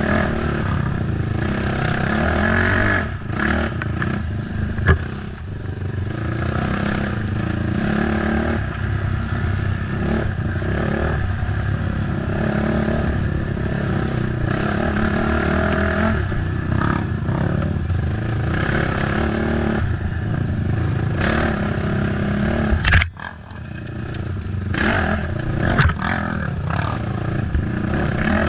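Race ATV engine running hard, its pitch rising and falling with the throttle, over a constant clatter and rattle from the machine crossing rough ground. Sharp knocks come about five seconds in and twice near the end; after the first of these the engine briefly drops off before picking up again.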